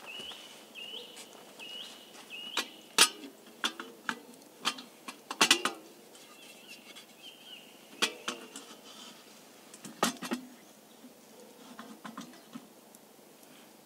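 A metal kettle being handled and hung on a wooden stick over a campfire: a series of sharp clinks and knocks, the loudest about three, five and a half, eight and ten seconds in. A bird calls with short repeated notes during the first couple of seconds and again around seven seconds in.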